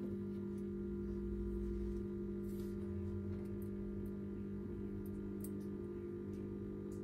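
A steady low hum of several held tones, unchanging throughout, with a few faint scattered clicks.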